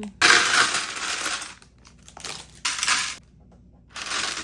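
A bag of Lego pieces being handled and emptied: several bursts of plastic bag rustling and small plastic pieces clattering, the longest in the first second and a half.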